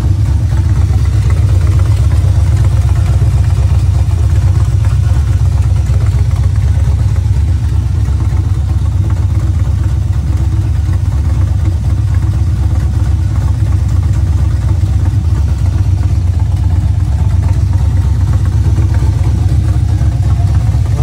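Chevrolet Monte Carlo SS's V8 engine idling steadily with a deep, even rumble.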